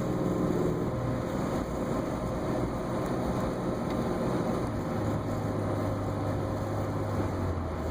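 Vehicle engine fitted with a Holset HE351VE turbocharger, running under wide-open throttle while accelerating, a steady engine sound with road noise.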